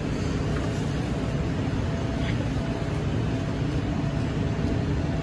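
Steady hum and rumble of Taipei Metro BT370 trains (Bombardier rubber-tyred people-movers) at the platform, with a faint whine that comes and goes.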